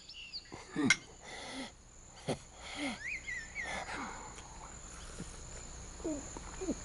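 Outdoor nature ambience: insects keep up a steady high buzz, a bird gives a few short chirps about three seconds in, and there are a few soft short knocks and slurps.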